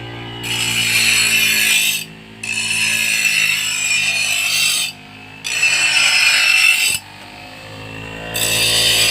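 A power grinder runs steadily, and its wheel is pressed against steel in four grinding passes of about two seconds each, with short breaks between them. This is the finishing of the forged steel arrowhead.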